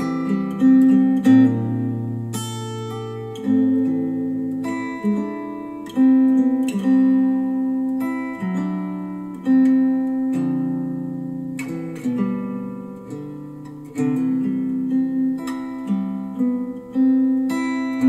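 Acoustic guitar instrumental played back through KEF Q150 bookshelf speakers driven by a NAD C 338 integrated amplifier: picked notes and chords, a new one about every second, each ringing and fading.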